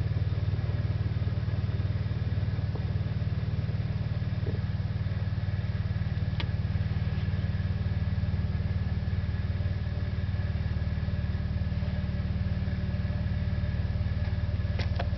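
Excavator engine idling steadily, a low even drone that does not change in pitch.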